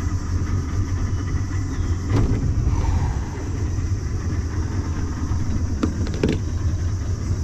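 A small boat's motor running steadily with a low hum, with a few light knocks about two seconds in and again near the end.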